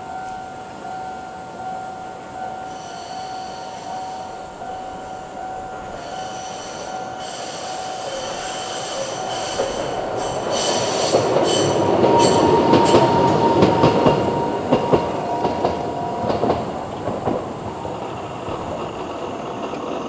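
Japanese level-crossing alarm ringing its slow-tempo "kan-kan" warning tone while a Toden Arakawa Line tram approaches and passes. The tram's wheels squeal high-pitched, and the passing is loudest about twelve to fourteen seconds in. The alarm stops near the end as the crossing clears.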